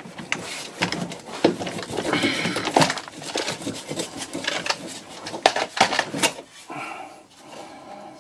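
Irregular metal clanks, knocks and scrapes of a Porsche 996's rear suspension control arm and its bolts being worked loose and handled by hand.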